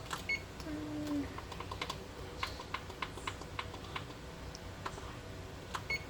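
A run of light clicks and taps, several a second through the middle, with a short high beep near the start and another near the end.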